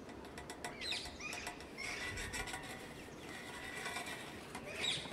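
Small songbirds chirping in short gliding calls, about a second in, around two seconds, and again near the end. Light clicks and rubbing close to the microphone come in the first second.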